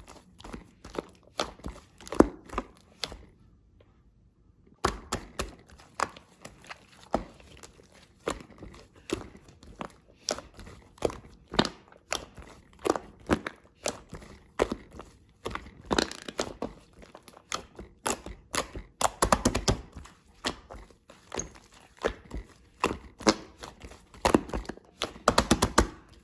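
Shaving-foam slime being squeezed, poked and stretched by hand, making a long run of sticky clicks and crackles, with a brief pause about three seconds in.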